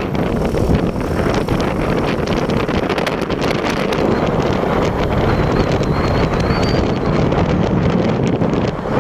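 Wind buffeting a camera microphone on a moving vehicle, a loud, steady rush with gusty crackles, over the low rumble of the vehicle travelling along the road.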